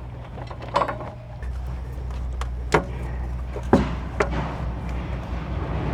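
Several sharp metal knocks and clunks as a replacement engine is handled and set onto a lawn tractor's frame, over a steady low hum.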